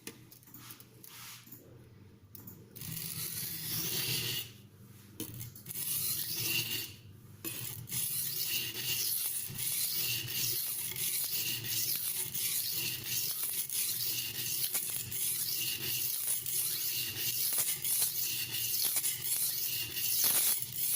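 Stainless steel kitchen knife blade being ground on a wet silicon carbide whetstone: repeated gritty rubbing strokes, settling into an even rhythm of about one stroke a second. The stone is releasing its abrasive grain as the edge is ground down.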